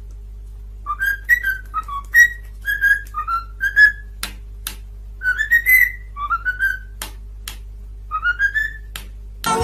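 Cockatiel whistling a tune in short phrases of gliding notes, with a few sharp clicks between the phrases.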